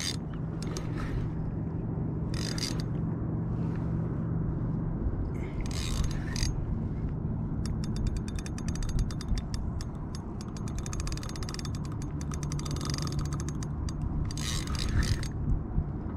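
Fishing reel being cranked to bring in a hooked fish, its gears whirring steadily. Several short rasping bursts come through, and rapid clicking sets in about halfway through.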